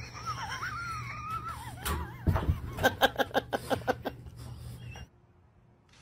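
A thin, wavering high-pitched whine for about two seconds, then a person laughing in quick rhythmic pulses; it stops suddenly about five seconds in.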